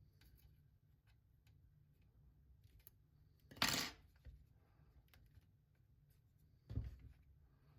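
Two short clatters of hard parts being handled, about three and a half seconds in and again near the end, with a few faint ticks between.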